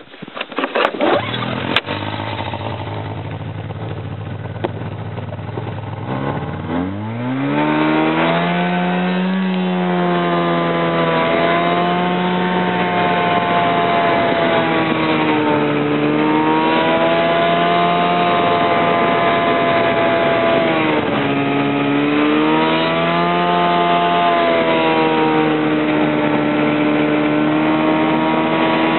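Snowmobile engine towing a wooden snow drag. A few knocks come in the first two seconds and the engine idles, then it revs up about six seconds in and runs under load, its pitch rising and falling as the speed changes.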